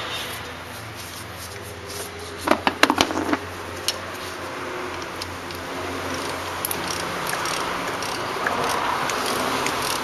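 A quick run of sharp metallic clicks, a ratchet turning a 5/8-inch spark plug socket, about two and a half seconds in, over a steady low hum.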